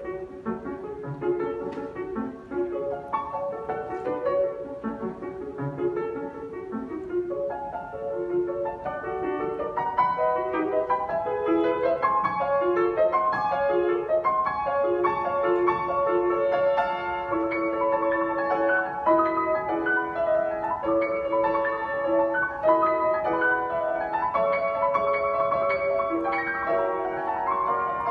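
Grand piano played solo: a continuous flow of many short notes in the middle and upper register, growing fuller and louder about ten seconds in.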